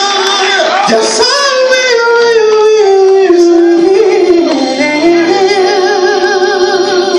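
Two men singing gospel into microphones, amplified, with long held notes and wide vibrato in a high tenor range, over a steady instrumental backing.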